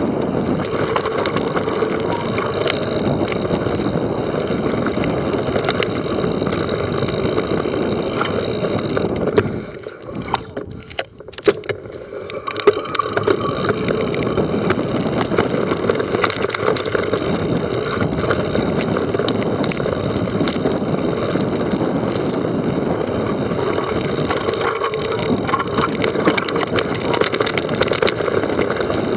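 Mountain bike riding down a dirt trail: a steady rush of wind and tyre noise with constant small rattles and clicks from the bike. About ten seconds in it goes much quieter for roughly three seconds, broken by a few sharp knocks, then the rush comes back.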